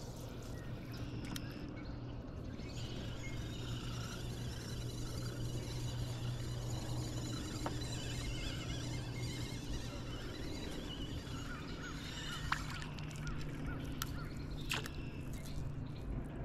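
Calm lake ambience with faint, distant birdsong over a steady low hum and a few light clicks.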